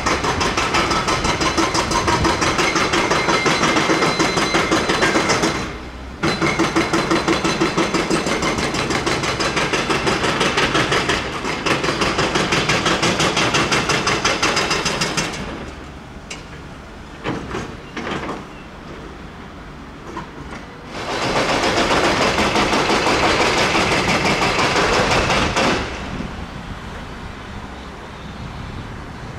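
Rapid mechanical hammering, several strokes a second, in three bursts that start and stop abruptly, like a powered tool at work.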